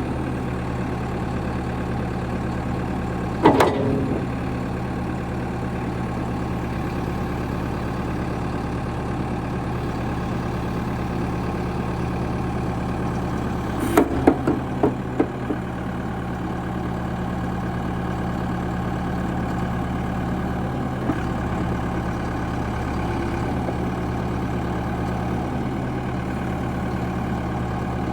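Diesel engine of a 2001 New Holland backhoe loader running steadily at idle. A sharp knock comes about three seconds in, and a quick run of four or five knocks comes about halfway through.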